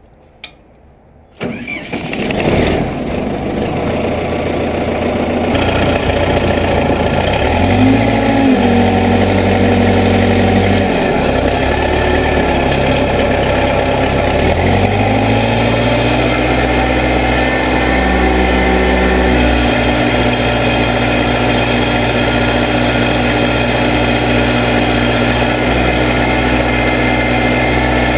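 Case 580B backhoe's engine starting: a click, then it cranks and catches about a second and a half in. It runs on, its speed stepping up and down a few times before settling into a steady run.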